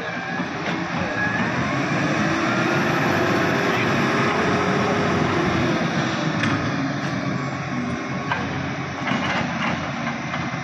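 A heavy vehicle's engine running close by, loudest in the middle, its pitch rising and then falling as it passes, over steady road noise.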